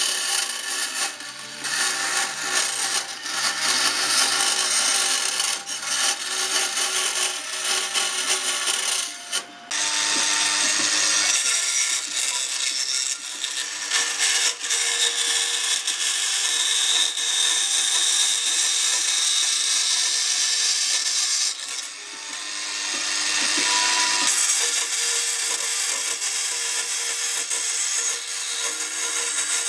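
Vertical band saw cutting sheet steel: a steady, loud hiss and whine of the blade in the metal. The sound dips briefly about a third of the way in and again about three-quarters of the way through as the piece is steered along the cut.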